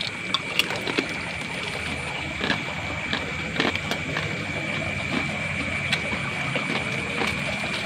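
Night insect chorus, a steady high hum, with scattered small clicks and taps.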